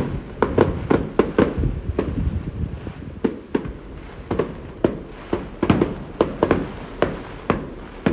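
Fireworks going off in a rapid, irregular string of sharp bangs, several a second, easing off briefly in the middle before picking up again.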